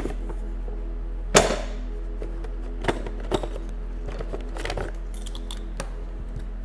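Soft background music with steady held tones, over which a sharp knock sounds about a second and a half in, followed by a few lighter clicks: handling noise as a utility knife is picked up off a workbench.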